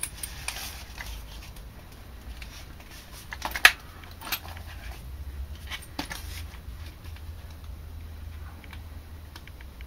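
An RC car chassis being handled and turned over on a wooden board: scattered light clicks and rattles of its plastic and metal parts, with one sharp knock about three and a half seconds in, over a low steady hum.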